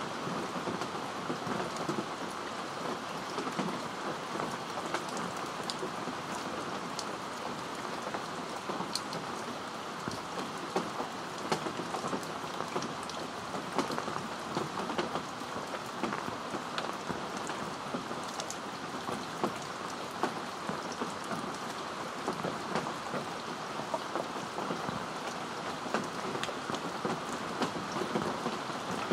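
Heavy rain falling steadily on a fabric umbrella overhead, with frequent sharp ticks of single drops striking close by.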